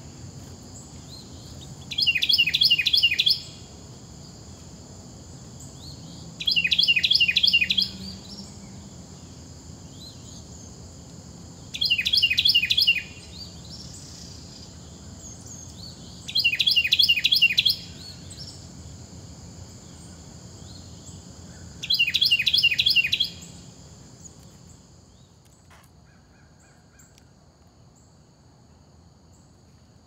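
A songbird singing five short, rapid trills of repeated notes, each about a second long and some five seconds apart, over a steady high-pitched drone of insects that fades near the end.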